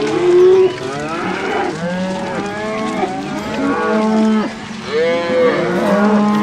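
Several cows mooing in loud, overlapping calls, with a brief gap about four and a half seconds in.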